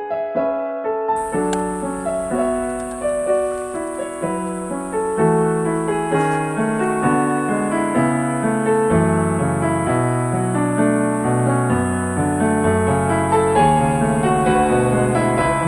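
Background piano music, a flowing melody over a bass line in many quick notes.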